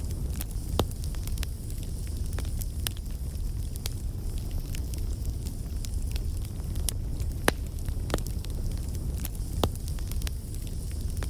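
Bonfire burning: a steady low rumble of flame with scattered sharp crackles and pops at irregular intervals.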